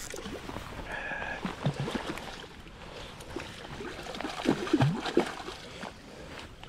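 Water splashing and sloshing as a hooked rainbow trout thrashes at the surface while being played to the net, with the loudest splashes about four and a half seconds in.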